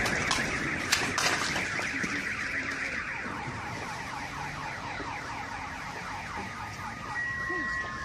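Car alarm going off with a fast, repeating warble, accompanied by a few sharp clicks in the first second; near the end a steady high tone joins it.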